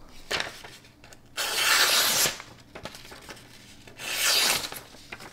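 Spyderco Bodacious folding knife's sharp new blade slicing through a sheet of paper in two long strokes, each a scraping hiss under a second long, the first about a second and a half in and the second near the end.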